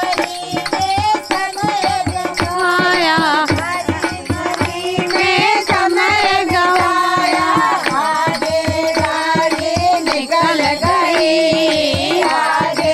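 Women singing a Hindi devotional bhajan together, with hand-claps keeping a steady beat.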